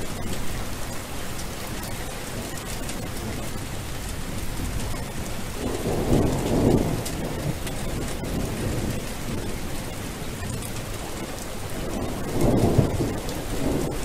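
Steady rain falling, with two low rolls of thunder, one about six seconds in and another near the end.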